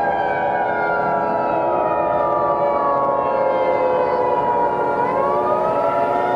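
Siren sound effect with layered tones whose pitch falls slowly for about five seconds and then starts rising again near the end, over steady held tones.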